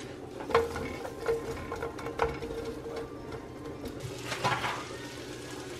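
Butter melting in a ceramic frying pan, with a few sharp pops and ticks over a steady low hum. About four and a half seconds in comes a short cluster of light knocks as a bunch of asparagus spears is laid into the pan.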